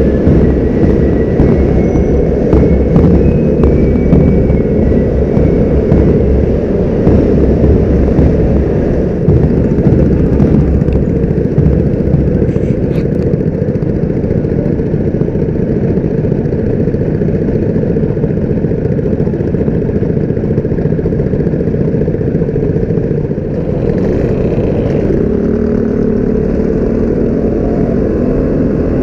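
Motor scooter engines running in a group ride, a loud steady drone heard from a scooter-mounted camera. Near the end an engine's pitch rises and falls as it revs and pulls away.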